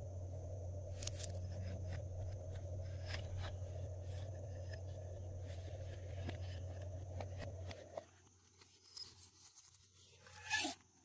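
Glossy slime being worked by hand, making scattered small sticky clicks and crackles, with one louder one near the end. A steady low hum underlies it and drops out about eight seconds in.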